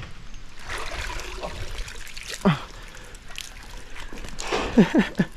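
Water trickling and splashing off a mud-caked magnet-fishing catch and its rope as it is hauled up out of a canal. A short sound falling in pitch comes about halfway through, and a few more come near the end.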